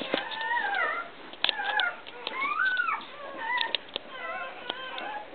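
A litter of newborn puppies crying at once: several overlapping high squeals that slide up and down in pitch, with a few sharp clicks among them.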